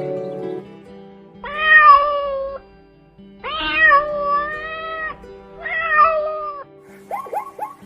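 Domestic cat meowing three times, long drawn-out meows with the middle one the longest, over steady background music. A run of quick short chirps starts near the end.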